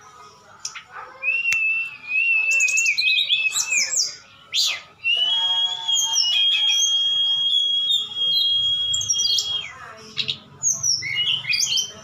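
Caged flycatchers, a brown-chested jungle flycatcher and a hill blue flycatcher, singing against each other. Two long, high whistled phrases, the second lasting about four seconds, are broken up by quick sweeping chirps.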